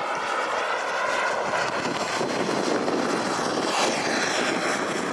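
Turbine engine of a radio-controlled model jet in flight, a steady whining rush that swells as the jet passes low about halfway through, then eases off.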